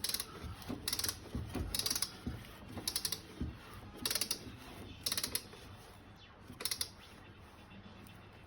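Ratchet wrench clicking in short strokes, about one stroke a second, seven times, each stroke a quick run of fine pawl clicks; it stops a couple of seconds before the end.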